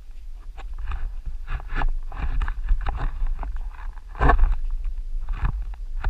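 Wind rumbling on a handheld action camera's microphone, with irregular scuffing and rustling from walking on a dirt trail and handling the camera pole; the loudest scuff comes about four seconds in.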